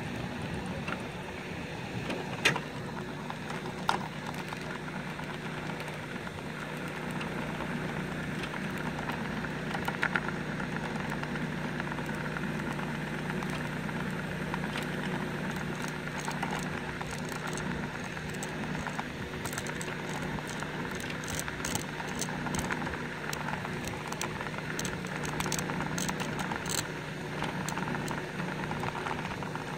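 A steady engine hum, running evenly like an idling motor, with scattered sharp clicks and taps that come more often in the second half.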